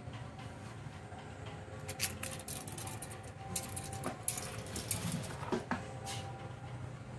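Steel tape measure blade scraping and tapping against a machine vise as it is repositioned across the jaws, a run of short scratchy clicks from about two seconds in to about six seconds, over a low steady hum.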